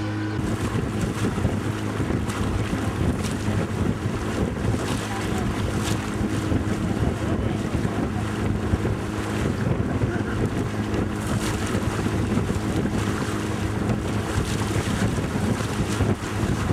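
Wind buffeting the microphone on a moving river boat, with the rush of water along the hull and a steady low motor hum underneath; the gusty noise sets in about half a second in.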